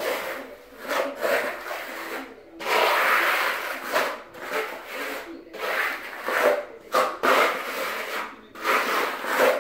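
Steel trowel scraping across a concrete floor as it spreads a wet microcement coating, in repeated sweeping strokes with short breaks between them.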